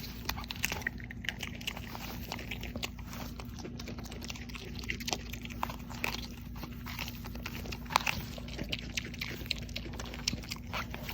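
An animal chewing something crunchy: irregular crunches and clicks, over a steady low hum.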